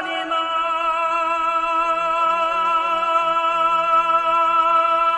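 A male folk singer holds one long, steady note with a slight vibrato on the wordless opening call "a-lang-he-he-ni-na" of a Hezhe fishing song, over a soft low accompaniment.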